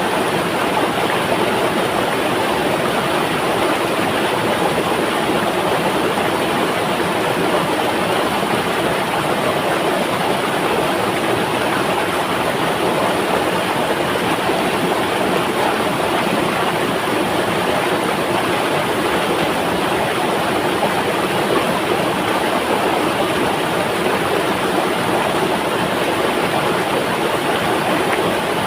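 A river flowing, a steady, even rush of water with no breaks or changes.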